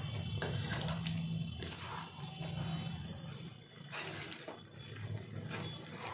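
Marinated chicken and spice paste stirred with a spatula in a hot pan over a high flame, sizzling wetly, with a series of uneven scraping strokes and a few sharp knocks against the pan.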